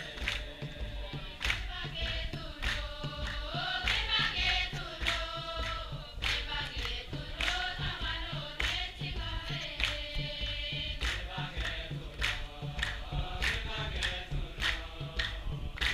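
Congregation singing a communion hymn together, men's and women's voices, over a steady beat of sharp strikes about twice a second.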